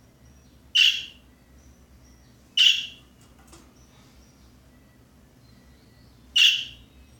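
Pet budgerigar making a strange noise: three short, harsh, raspy calls, the third after a longer pause.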